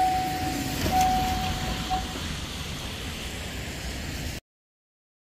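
Level-crossing warning signal sounding a steady electronic tone in uneven on-off pulses, which stops about two seconds in. A car then passes over the crossing with tyre hiss on the wet road, and the sound cuts out abruptly near the end.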